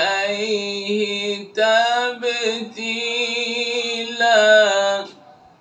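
One man's melodic Quran recitation in the slow tahqiq style, voice alone with long held, gliding notes, stopping about five seconds in.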